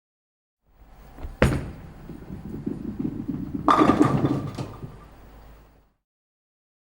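A sharp bang about a second and a half in, then a rough rumbling clatter and a quick run of knocks near four seconds, ending by about six seconds.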